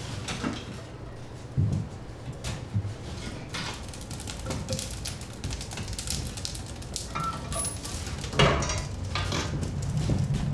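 Split firewood being handled and fed into the firebox of a wood-fired bread oven: irregular wooden knocks and clatter, with a louder burst of clattering near the end.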